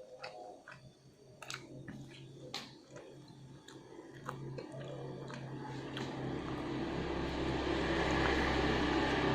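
Close-up mouth sounds of a person chewing instant noodles: scattered wet clicks and smacks. About six seconds in, a steady hiss with a low hum grows louder and takes over.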